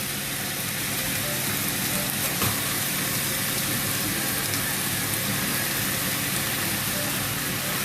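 Chicken pieces sizzling steadily in hot oil with garlic, onion and ginger as they sauté in a pan, over a steady low hum. A single light knock sounds about two and a half seconds in.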